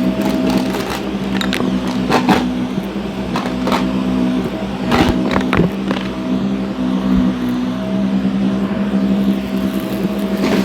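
Shark NV351 upright vacuum cleaner running with a steady motor hum, with short crunchy crackles of debris being sucked up a few times, around two, four and five seconds in.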